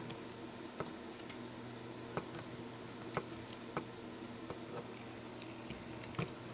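Scattered small plastic clicks and taps from a Transformers Deluxe Class Ratchet action figure being handled, its pegged plastic parts pulled apart and rotated during transformation. About half a dozen separate clicks, with a faint steady hum underneath.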